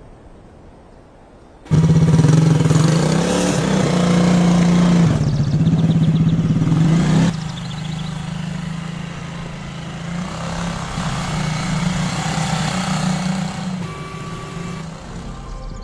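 A vehicle engine running, coming in suddenly about two seconds in with a steady droning pitch, loud for about five seconds and then dropping to a quieter run.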